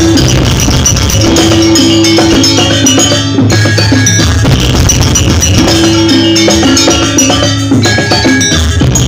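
Janger gamelan music: tuned bronze metallophones and gongs with drums, playing a loud, continuous melody whose phrase repeats every few seconds.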